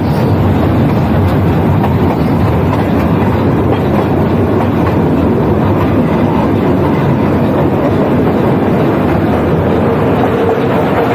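Steady rumble and rattle of a Nilgiri Mountain Railway toy-train carriage running along the track, heard from on board, with a faint steady tone joining near the end.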